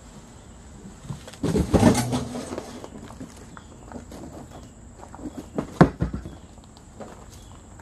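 Cardboard box and packing pieces being lifted off and pulled away by hand: a loud stretch of scraping and rustling about a second and a half in, then a single sharp knock just before six seconds, with smaller knocks and rustles around it.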